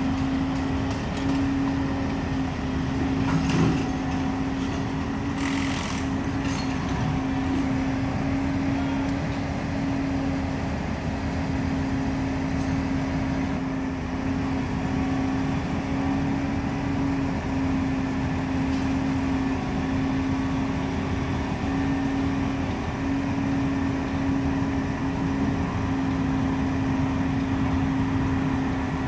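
Utility truck engine running steadily, a constant hum over a low rumble. A few short clicks come a few seconds in.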